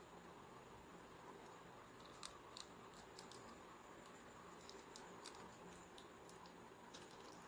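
Near silence: faint room hiss with a thin steady high tone, and a scatter of small clicks and taps from gloved hands handling a laptop motherboard and its parts.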